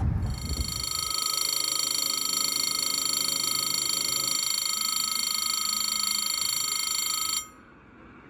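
French level-crossing bell ringing steadily, a continuous high electronic ringing that warns that the crossing is closed to road traffic. It cuts off suddenly about seven seconds in.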